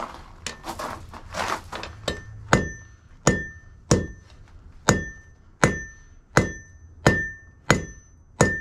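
Hand hammer striking a red-hot steel bar on the face of an Alec Steele anvil: about ten sharp blows at an even pace of roughly one and a half a second, each leaving a short high ring from the anvil, "a little bit of a ring, not too bad". The first two seconds hold only softer, duller knocks and scuffs before the steady hammering starts.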